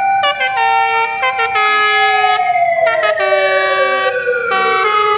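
Wailing siren with one slow fall in pitch that starts to rise again near the end, over a tune of held, stepped notes.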